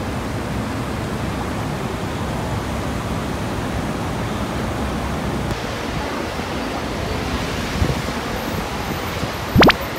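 Steady rushing outdoor ambience of a busy city, with a brief sharp click near the end.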